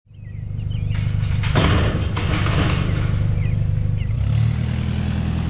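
A Toyota pickup's engine idling steadily, with a metal farm gate clattering as it is swung open about a second in. A few short bird chirps sound over it.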